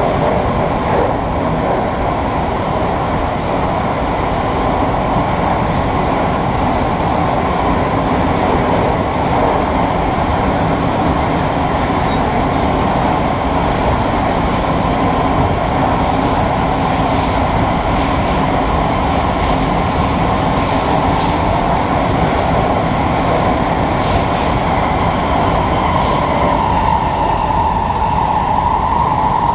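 SMRT C151B metro train running at speed, heard from inside the car: a steady rolling rumble with a constant whine that shifts a little higher near the end. Through the middle of the run there are scattered clicks from the wheels over the track.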